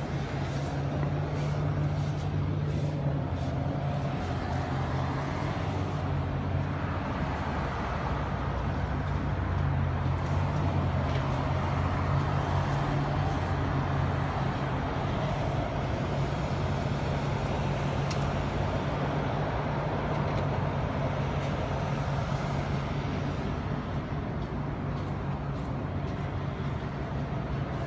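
A steady low engine drone from a nearby idling heavy vehicle, over a haze of urban street noise.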